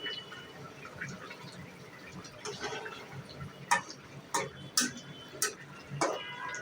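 Kitchen utensils knocking against cookware: about five sharp clinks in the second half, over a low steady background.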